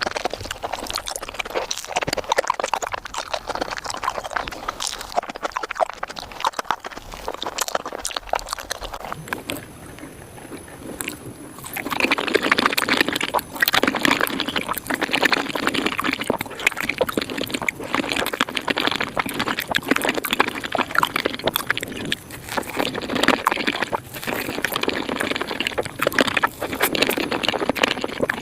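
Close-miked chewing and mouth sounds of eating a Japanese fruit sandwich (soft bread with whipped cream and fruit), sped up five times into a fast, dense stream of small clicky sounds. It drops off briefly about nine seconds in, then comes back louder from about twelve seconds.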